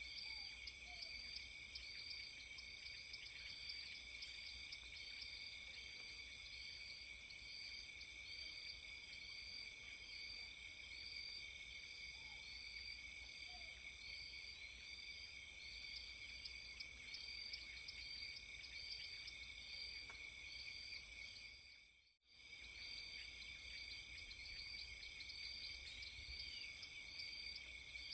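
Faint insect chorus: a steady high drone with regular short high chirps repeating throughout, cutting out for an instant about twenty-two seconds in.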